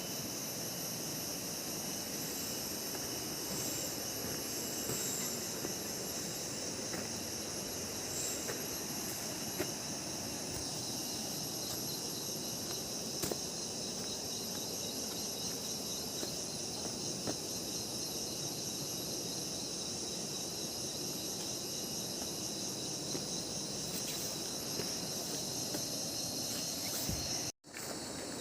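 A steady chorus of insects shrilling in a high, fast-pulsing band over a soft, even rushing hiss. The sound cuts out for a moment near the end.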